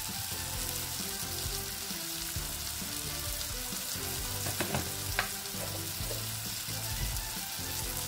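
Tomato and onion masala, dusted with turmeric and chilli powder, sizzling steadily as it fries in a steel pan, with a few light clicks about four to five seconds in.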